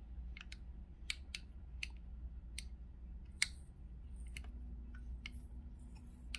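Ruifeiya NR-200 glow-plug model engine turned over slowly by hand, giving sharp, uneven clicks about two a second. The owner calls them pretty awful clicking noises and takes them for the sign of a defective engine.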